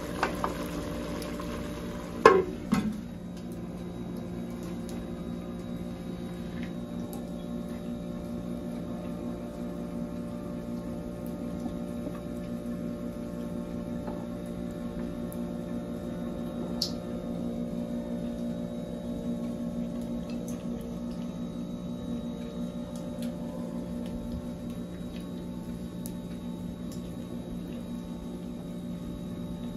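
A steady low hum made of several held tones, with a brief clatter about two seconds in and a faint click later on.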